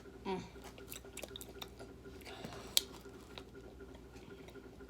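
Quiet eating sounds: small wet mouth noises and soft clicks, with one sharper click near the middle and a brief vocal sound right at the start.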